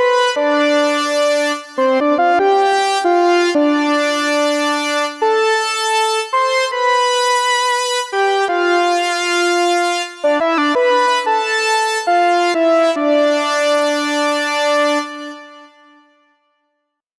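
Synthesizer preset from IK Multimedia Syntronik's Minimod library, sampled from a Moog Minimoog, playing a keyboard phrase of held notes that change every second or two, often two or more at once. It fades out to silence near the end.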